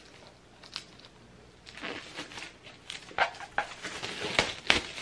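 Plastic shrink-wrap crinkling as a wrapped hardcover book is handled, in short bursts from about two seconds in after a quiet start, with a couple of sharp clicks near the end.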